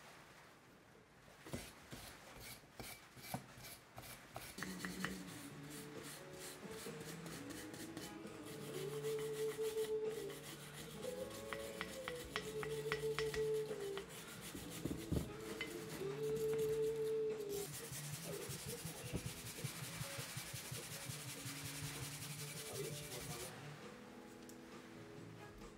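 Rapid rasping strokes of a hand tool scrubbing rust off a cast-iron Paramo No.5 bench vice, with soft background music of sustained tones from about four seconds in.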